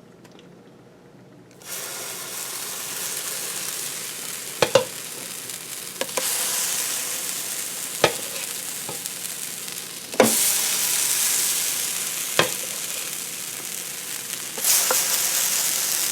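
Almond flour pancake batter sizzling on a hot griddle. The sizzle starts under two seconds in and gets louder three more times as more batter goes on, with a few sharp clacks of a utensil in between.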